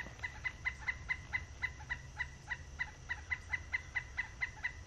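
A rapid, very regular series of short chirps, about six a second, likely a bird or insect call, over a low steady hum.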